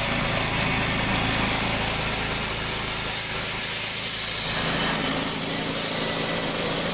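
Newly installed sawmill engine, a small gasoline engine, running steadily. Its low note shifts about four and a half seconds in.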